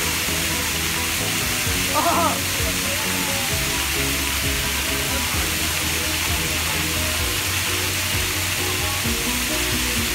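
Plaza fountain jets splashing onto paving: a steady hiss of falling water, with music playing under it. A short high-pitched voice calls out about two seconds in.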